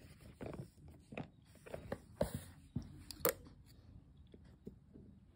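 Scissors scraping and snipping at a cardboard box, amid crunchy handling noise, with a sharp click a little past three seconds in.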